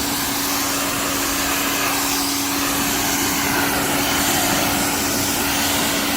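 Greenworks GPW2003 electric pressure washer running, its 14-amp motor and pump humming at one steady pitch under the loud, even hiss of the water jet from a 25-degree nozzle.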